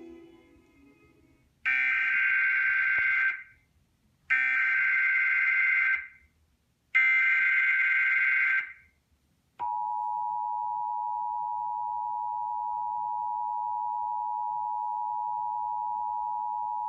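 Emergency Alert System SAME header: three short bursts of warbling data tones, starting an alert for a severe thunderstorm warning. They are followed by the steady two-tone EAS attention signal (853 and 960 Hz), held for about eight seconds.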